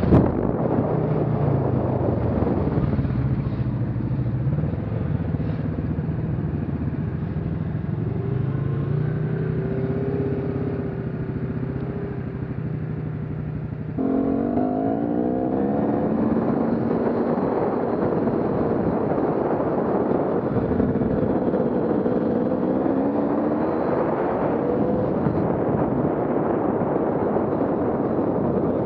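Off-road vehicle engine running as it is ridden, its pitch repeatedly rising and falling as it accelerates and eases off. The engine sound jumps abruptly about halfway through.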